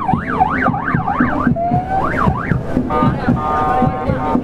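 Electronic siren yelping, its pitch sweeping rapidly up and down about three times a second. About three seconds in it changes to a steady horn note of several tones held together.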